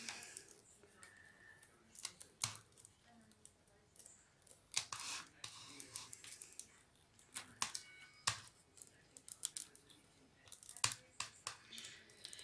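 Rolled newspaper tubes being woven through the paper stakes of a basket: scattered light clicks and brief rustling as the paper tubes brush and tap against each other, with a longer rustle about five seconds in.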